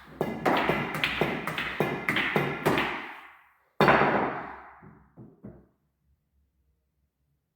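A quick run of about nine sharp knocks, each ringing briefly, then a louder single hit and three faint taps, after which the sound stops.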